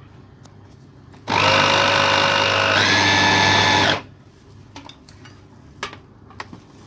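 Electric mini food chopper grinding raw shrimp into smooth meatball paste: one loud burst of about three seconds, its motor whine stepping up in pitch partway through, then stopping.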